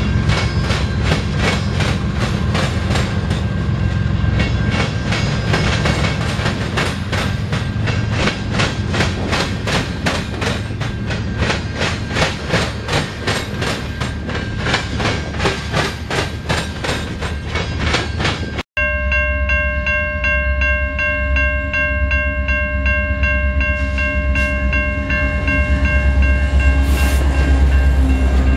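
Freight train passing close by, its wheels clicking steadily over the rail joints. After an abrupt break about two-thirds of the way through, a diesel locomotive's multi-chime air horn sounds one long chord over the low engine rumble.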